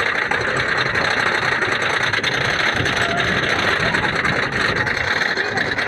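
Lightning Racer wooden coaster train climbing its chain lift hill: a steady, rapid mechanical clatter of the lift chain and the ratcheting clicks of the anti-rollback dogs.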